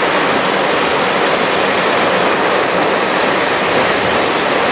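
Steady, loud rush of wind buffeting the microphone at an open car window while the car is driving.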